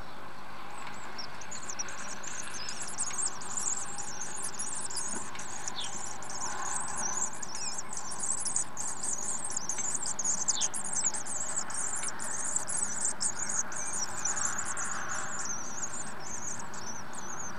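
Common swift chicks in a nest box giving a rapid, high-pitched twittering as they squabble. It starts about a second in and stops just before the end, over a steady hiss.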